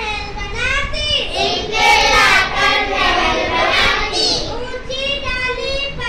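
Children singing a Hindi rhyme about a weaver bird in a sing-song chant, loudest in the middle.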